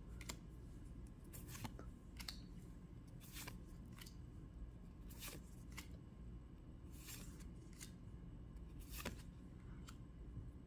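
Pokémon trading cards flipped through by hand, one at a time: faint, irregularly spaced swishes and snaps as each card is slid off the front of the stack to the back.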